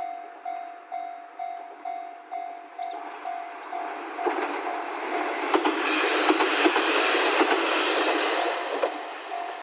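Level crossing warning bell ringing about twice a second; about four seconds in, a train passes through the crossing, its wheels clattering over the rail joints and drowning out the bell until near the end.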